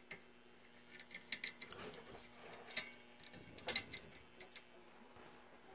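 Faint irregular clicks and ticks over a low steady hum while the tuning knob of a 1936 Silvertone 4563 tube radio chassis is turned with the volume down.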